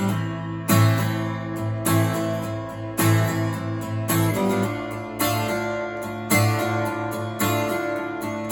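Bulldog D-4 solid-wood acoustic guitar, strung with Ernie Ball Rock & Blues 10–52 strings, played in chords struck about once a second, each left to ring. The tone is dry.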